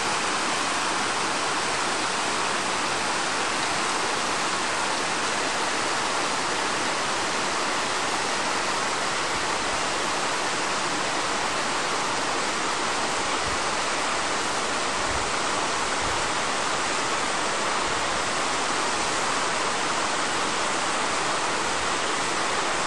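Waterfalls cascading down a steep rock face: a steady, even rush of falling water.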